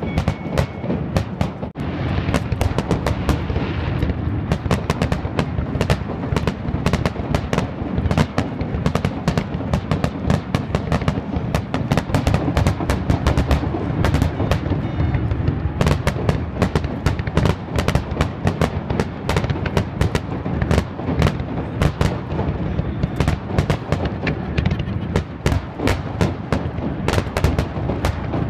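Fireworks display: shells bursting in a rapid, continuous barrage, many sharp reports a second over a steady low rumble.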